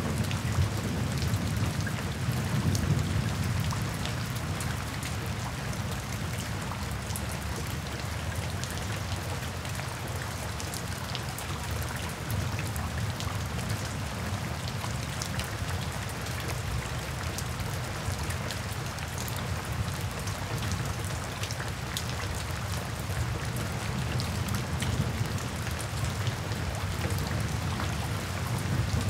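Steady rain falling on a wet paved path, a continuous hiss full of individual drop splashes and patters. A low rumble runs underneath and is stronger in the first few seconds.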